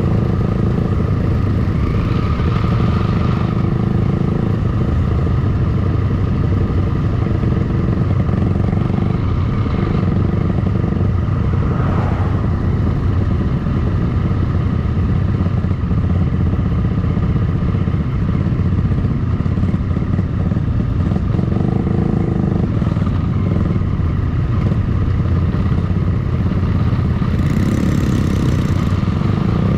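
Motorcycle engines running steadily at cruising speed, with wind and road noise.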